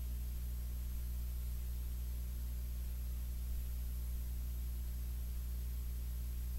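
Steady low electrical hum with a buzz of overtones and a faint, thin high-pitched whine above it, unchanging throughout, with no speech or music.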